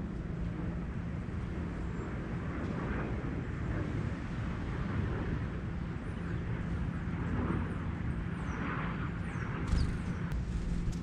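Steady low rumble of distant engine noise with a faint constant hum. A few faint, high, short bird chirps come in the second half, and a sharp click sounds near the end.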